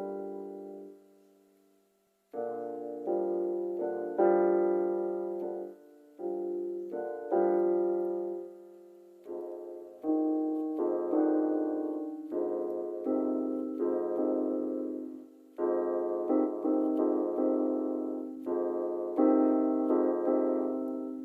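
Piano playing an unaccompanied introduction: slow chords that ring out and fade, in phrases broken by short pauses.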